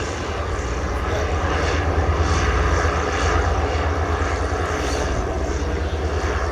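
Propeller aircraft engine running steadily, a continuous drone with a heavy low rumble.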